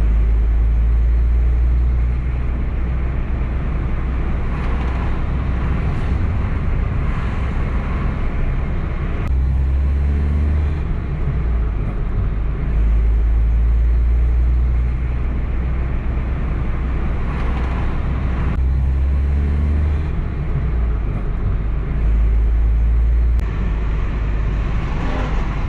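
Road and engine noise heard from inside a moving car's cabin: a steady tyre and engine rumble. A heavy low rumble swells and eases every few seconds.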